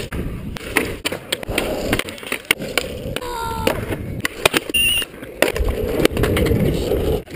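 Skateboard wheels rolling over rough asphalt, broken by many sharp clacks of boards popping, hitting the ground and landing.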